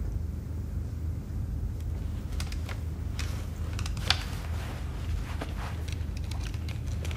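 Steady low rumble of room tone, with scattered light clicks and rustles of small movements from about two seconds in and one sharper click about four seconds in.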